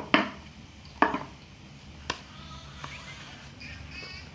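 Cardboard phone box being opened: three sharp knocks about a second apart as the lid comes off and the box parts are handled and set down on a tile floor, the third fainter.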